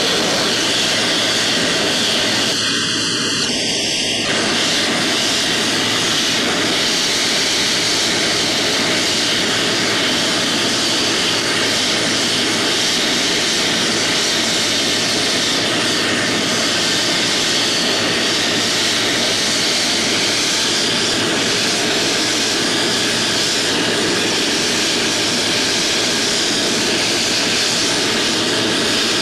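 Jet turbine running steadily on the flight line, an even, unchanging noise with no spool-up or change in pitch. The sound drops out briefly about three seconds in.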